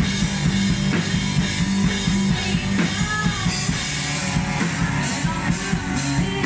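Small rock band playing live: a singer's voice over electric guitar and drums, picked up from the audience in the room.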